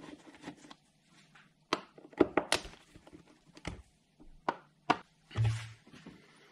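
Scattered sharp clicks and knocks of a Torx screwdriver and loose screws against a plastic airbox lid as the lid's screws are taken out, about half a dozen in a few seconds with short pauses between, then a brief dull thud.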